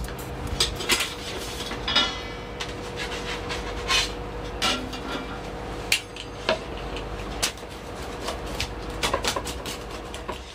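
Restaurant kitchen cooking sounds: metal utensils and pans clattering and knocking at irregular intervals, over a steady hum.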